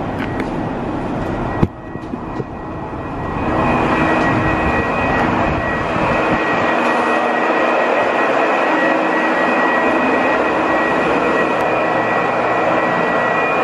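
A single click, then a steady rushing mechanical hum with a thin high whine comes up about three seconds in and holds evenly.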